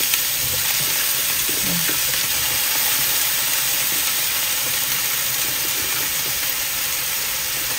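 Napa cabbage and chicken frying in a hot nonstick wok: a steady sizzling hiss.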